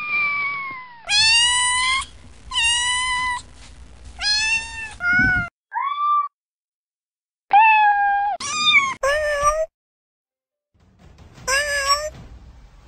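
Domestic cat meowing: a run of about ten meows, some drawn out and some short, each rising and falling in pitch, with short pauses between them.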